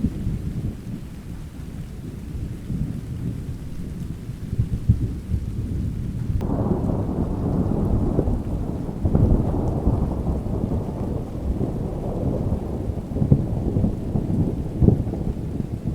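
Thunder rumbling low over steady rain. About six seconds in, a louder, crackling peal breaks in and rolls on, with several sharp cracks toward the end.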